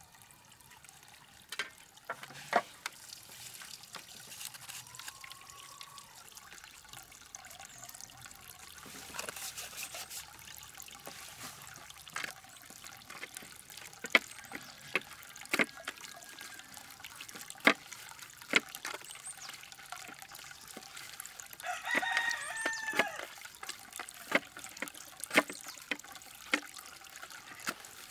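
Raw pork being rubbed and pressed by hand on a stainless steel plate: wet squelching and sharp clicks against the metal, over a faint trickle of water. A rooster crows once, about three-quarters of the way through.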